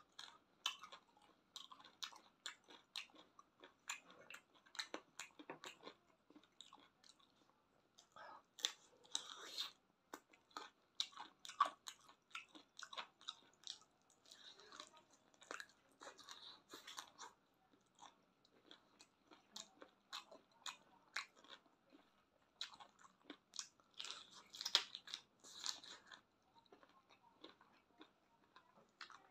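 Close-up mouth sounds of a person biting and chewing chicken feet: many quick, irregular wet clicks and smacks, busiest about nine to ten seconds in and again around twenty-four to twenty-six seconds.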